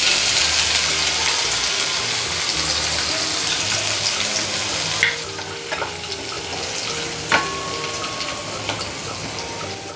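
Hot ghee sizzling in a metal kadhai over cumin seeds and freshly added green chilli paste. The hiss is loudest at first and slowly dies down. In the second half a wooden spatula stirs and taps the pan a few times.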